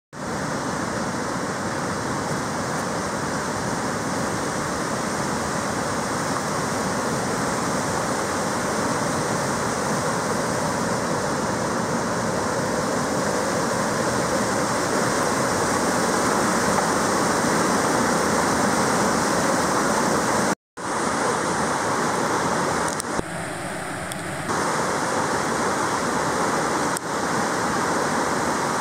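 Rushing white water of a fast mountain stream, a steady roar. The sound cuts out for an instant about two-thirds through.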